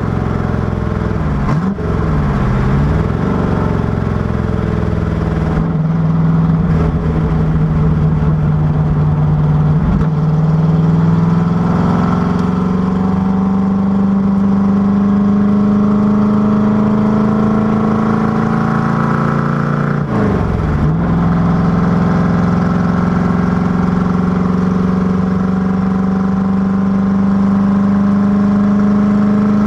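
Factory Five Racing Cobra Daytona Coupé replica's V8 engine running hard at racing speed. Its note climbs steadily, with brief breaks at gear changes. The pitch dips and swings back up sharply near the start and again about twenty seconds in, as the car lifts off, shifts down and pulls again.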